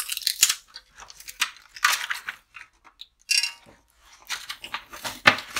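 Packaging being handled and pulled off a new nonstick frying pan: a series of short, irregular rustling and crackling noises with small gaps between them.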